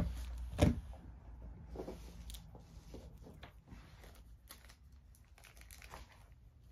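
Faint rustling and crinkling of plastic shrink wrap with scattered small clicks, as wrapped card decks are handled. A brief louder sound about half a second in.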